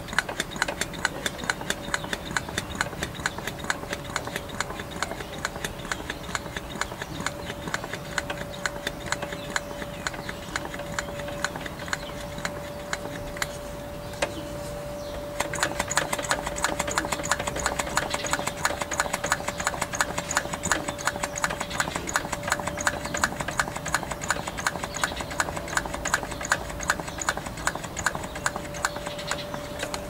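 Vacuum pump running, with a steady hum under a fast, even clicking of about four strokes a second. The clicking eases briefly about halfway through, then comes back louder and brighter.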